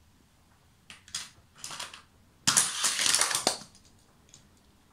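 A hand rummaging among hard toy cars off to the side: a few soft rustles, then a dense clattering burst of many small clicks lasting about a second, a little past halfway through.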